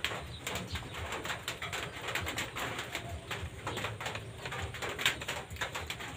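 Strips of cloth and plastic rustling and crackling as they are pulled and pushed by hand through a wooden weaving frame, in a dense run of irregular small clicks, with pigeons cooing in the background.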